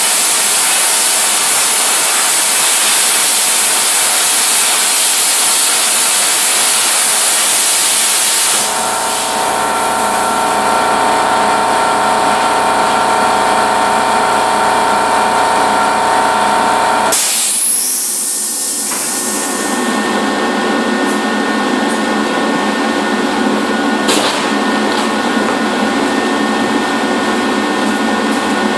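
Plasma cutter running: a loud, steady rushing hiss of air and arc. The sound changes abruptly about a third of the way in, when a set of steady hums joins it, and again a little past halfway.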